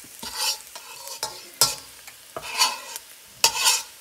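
A slotted metal spatula scraping and stirring minced garlic around a wok in hot oil, about five strokes, with a faint sizzle beneath.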